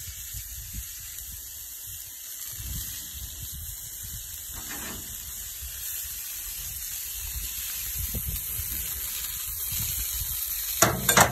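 Prawns sizzling on a hot charcoal barbecue grill, a steady hiss, with a few sharp knocks near the end.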